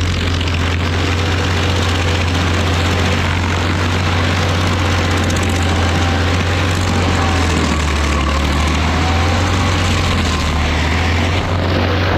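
Rayco RG50 stump grinder running steadily under load as its cutter wheel grinds a stump into chips. The engine's loud, constant drone blends with the even rush of the teeth chewing wood.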